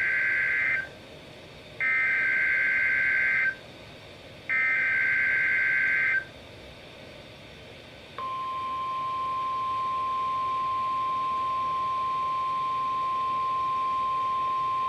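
NOAA Weather Radio alert opening. It starts with the end of one burst of SAME header data and then two more full bursts: a harsh warbling buzz, each burst under two seconds, with about a second between them. Then a steady single-pitch 1050 Hz warning alarm tone starts and holds. Together these signal that a weather alert follows.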